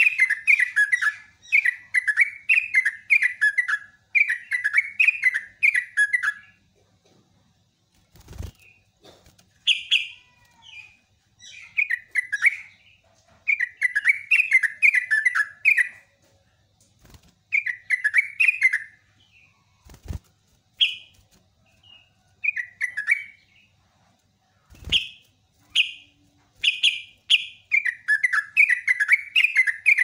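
Yellow-vented bulbul singing: short, rapid, bubbly warbling phrases over and over with brief gaps between them, the long rolling song that keepers prize. A few dull knocks fall between the phrases.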